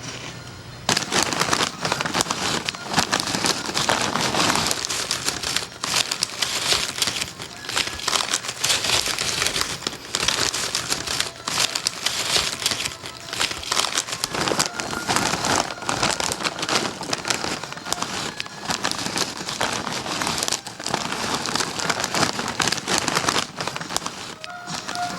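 Loud, continuous crinkling and crackling that starts suddenly about a second in and carries on with little change, fading near the end.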